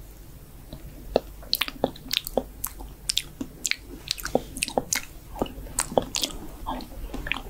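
Close-miked ASMR mouth sounds of mock eating: wet smacking, tongue clicks and bites, quick irregular clicks a few times a second.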